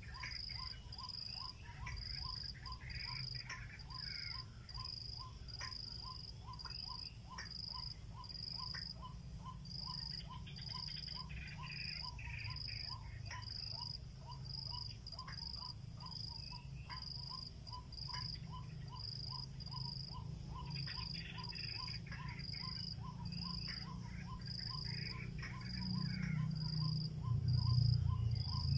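White-breasted waterhen calls: harsh, croaking 'wak' notes in several bouts. Under them, insects chirp in a steady, even rhythm, and a low rumble grows near the end.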